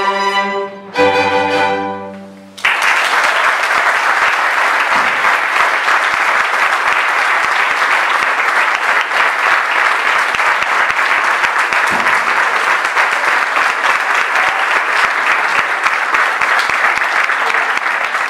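A string orchestra of violins, violas, cello and double bass plays its final held chords, the last one with a low bass note, and they fade out about two and a half seconds in. The audience then breaks at once into steady applause.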